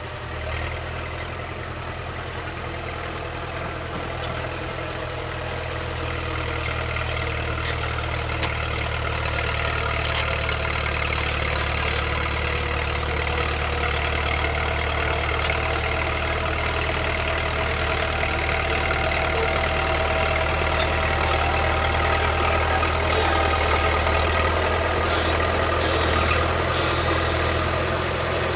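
Caterpillar D4C crawler bulldozer's diesel engine running steadily as it pushes earth, growing gradually louder as the machine approaches.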